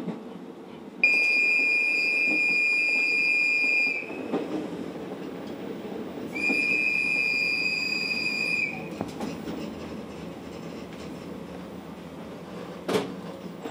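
Kiha 54 diesel railcar's warning whistle blown twice, two long steady high blasts of about three seconds each, over the railcar's running rumble; a warning to Yezo deer on the track ahead.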